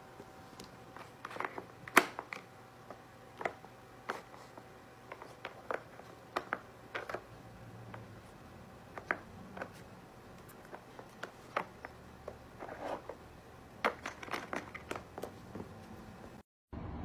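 Plastic puzzle feeder's tiles, pegs and spinner clicking and clattering as a cat paws and noses at them: scattered sharp clicks and taps, the loudest about two seconds in.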